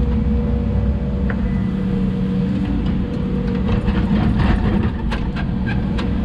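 Hidromek 140 crawler excavator's diesel engine running steadily under load, with a few sharp knocks and clatters in the second half.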